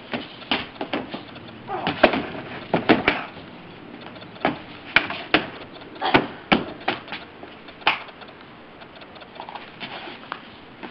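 A run of sharp, irregular knocks and taps, some in quick pairs and clusters, thinning out near the end.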